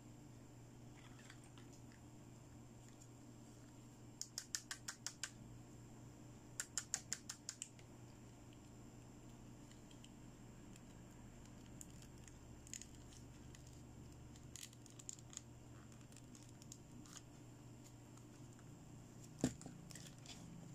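Small plastic toy doctor-kit pieces being handled: two quick runs of about six light clicks each, a few seconds apart, then scattered soft ticks and one sharper knock near the end.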